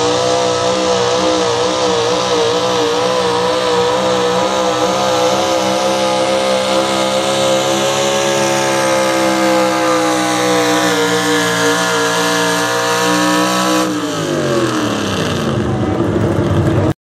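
Super stock diesel pulling truck's engine running flat out under load as it drags the sled, a steady high-pitched engine note that wavers slightly at first. About fourteen seconds in the pitch falls away as the engine winds down at the end of the pull.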